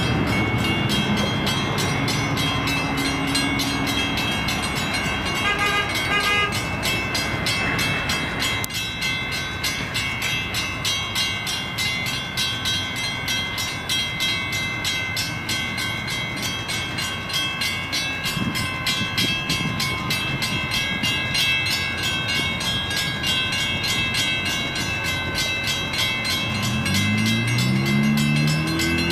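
Metra commuter train rumbling past a grade crossing, with the crossing bells ringing steadily over it. A deeper pitched sound bends up and down near the end.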